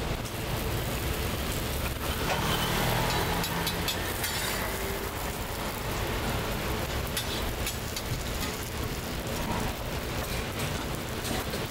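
Scallion pancakes frying in oil on a griddle, a steady sizzle, with a few sharp clicks.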